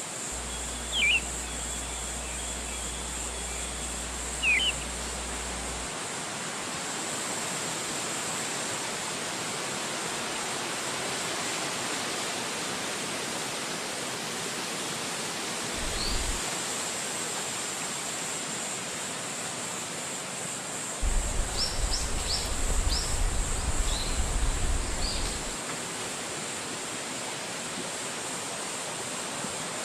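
Wind rushing steadily through forest trees, with a few short, high bird chirps: two early ones a few seconds apart, one around the middle, and a quick run of chirps a little past twenty seconds.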